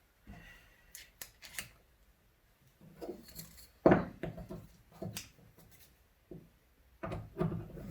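Handling sounds of a screwdriver and a wood block being set up: scattered light clicks and taps, with a louder knock on the wood about four seconds in and a few more knocks near the end.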